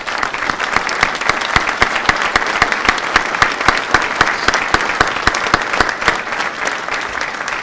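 An audience applauding steadily, with a run of sharp, close individual claps from the person at the podium microphone on top; the applause eases a little near the end.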